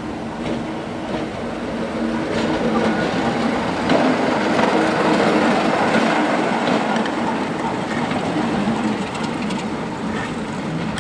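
A Class 33 diesel locomotive's Sulzer eight-cylinder engine running steadily as the locomotive passes close by. It is loudest about halfway through and fades as it draws away, with a few clicks from the wheels over rail joints.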